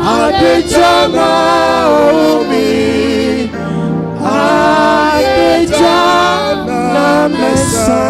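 Gospel singing with music: voices hold long, wavering notes with vibrato.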